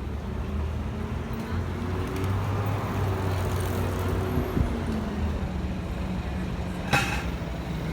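Road traffic: a motor vehicle's engine running close by, its hum dropping in pitch as it passes about halfway through. There is a sharp click near the end.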